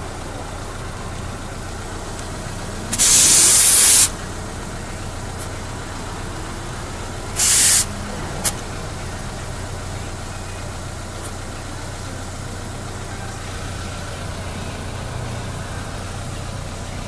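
Two loud hisses of compressed air escaping at the tire valve as a tire inflator's hose chuck is worked on the valve stem: one about a second long about three seconds in, a shorter one near eight seconds, then a sharp click. A steady motor hum runs underneath.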